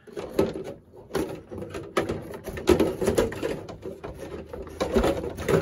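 Team Infinity size 18 nitro engine being turned over by hand with its pull start: a series of irregular clicks and rasps as it is worked against compression. The engine has compression.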